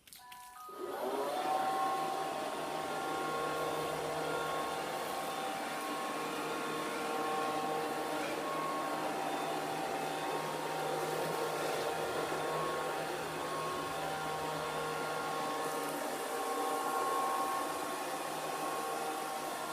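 Kitfort KT-503 robot vacuum cleaner starting up: a few short beeps, then its suction motor and brushes come on about a second in and run with a steady whir.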